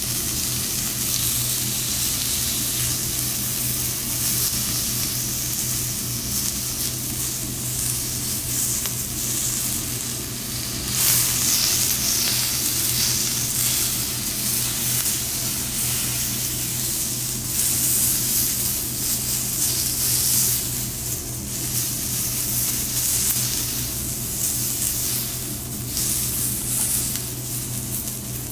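Sliced abalone sizzling on a hot teppanyaki steel griddle: a steady hiss that swells louder about eleven seconds in and again near the two-thirds mark, over a steady low hum.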